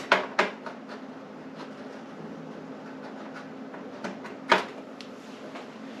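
Clicks and knocks from audio cables and connectors being handled and plugged in, with a louder knock about four and a half seconds in, over a faint steady hum.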